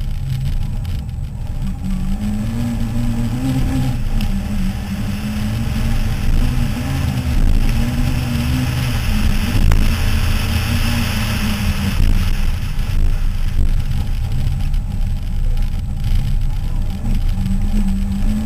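Toyota Starlet rally car's engine running hard on a gravel stage, its note rising and falling as the driver works through the revs. Tyres on loose gravel add a hiss that is strongest about halfway through.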